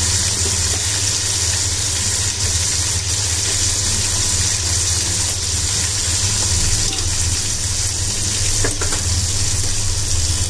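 Chicken pieces frying in their own released fat and oil, a steady sizzle, over a steady low hum.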